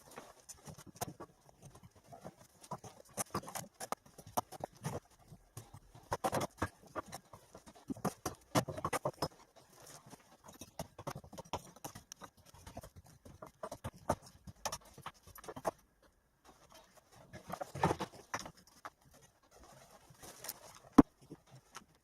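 Rubble being moved by hand: irregular knocks, clatters and scrapes of stones and debris, with a brief pause about two-thirds of the way through and one sharp click near the end.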